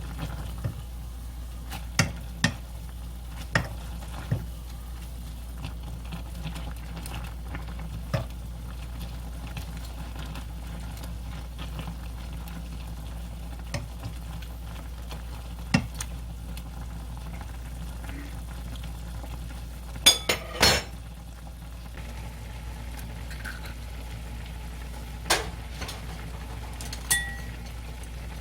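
Ramen cooking in a pot: a steady low hum under utensils clinking against the pot every few seconds, with a quick cluster of loud clinks about twenty seconds in.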